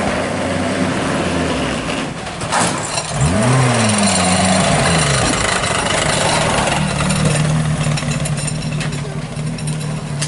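Rally car engine revving sharply up and back down about three seconds in, then running at steady revs, over a constant noisy wash.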